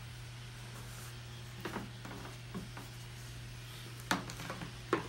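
A few short, soft knocks and scuffs, the loudest two near the end, over a steady low hum.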